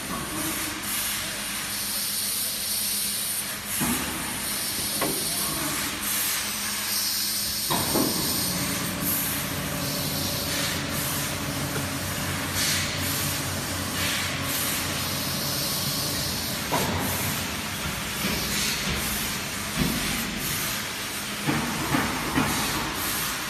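Fiber laser cutting machine's exchange table running, its pallets moving along their rails with a steady hiss. A low motor hum comes in about a third of the way through, with occasional knocks and clicks.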